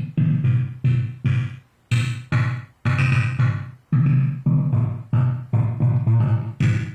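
Electronic jam music: a synthesizer playing short, low, buzzy notes one after another in an uneven, stuttering rhythm of about two a second, each note starting sharply and fading or cutting off.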